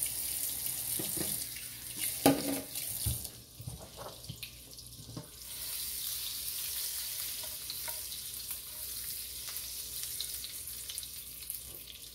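Butter and olive oil sizzling in a nonstick frying pan as the butter melts, a steady hiss that thins for a moment a few seconds in. A few light knocks come early on as the pan is handled.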